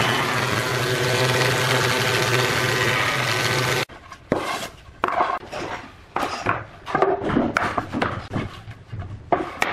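A combination planer-thicknesser machine runs, its motor humming steadily under the hiss of the cutterhead shaving a softwood board; the sound cuts off abruptly about four seconds in. Then planed wooden boards knock and clatter irregularly as they are set down and stacked.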